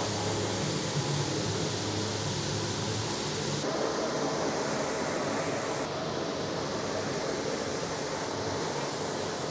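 Steady rushing kitchen background noise, like a fan or exhaust, with a low hum in the first three seconds. The noise changes character abruptly about four and six seconds in.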